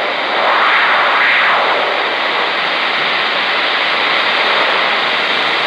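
Static hiss from a 10-meter mobile transceiver's speaker, cut through by a whoosh of radio-frequency interference that sweeps down and back up in pitch a couple of times in the first two seconds, then settles back to hiss. It is an unidentified interference that the operator likens to a rotating radar transmitter sweeping by.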